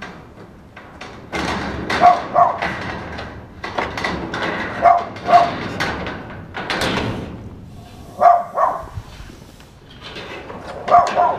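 A dog barking in pairs, two quick barks about every three seconds. Between the barks comes scraping and knocking of a metal fence top rail being pushed down over a lattice panel.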